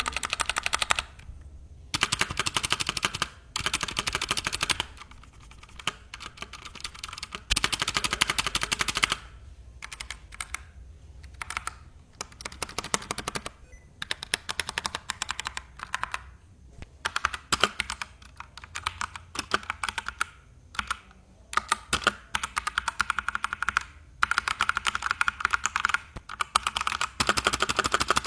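Typing on a Digital Alliance Meca Air mechanical keyboard with stock Otemu bronze switches and ABS keycaps: fast runs of key clicks in bursts, broken by short pauses.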